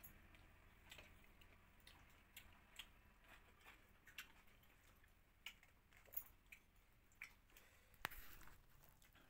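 Faint sounds of people eating by hand: quiet chewing and small scattered clicks, with one sharper click about eight seconds in.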